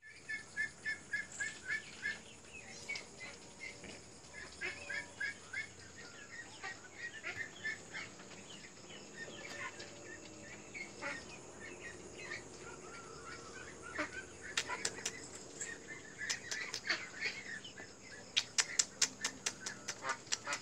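Two-week-old kittens mewing in short, high, repeated calls, several a second at the start and on and off after that. Runs of sharp clicks come in about two-thirds of the way through and again near the end.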